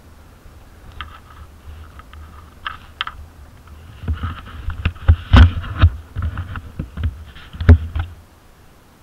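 Low rumble with a run of heavy thumps and sharp knocks starting about four seconds in, the loudest two about a second and a half and again about two and a half seconds apart, ending abruptly just after eight seconds.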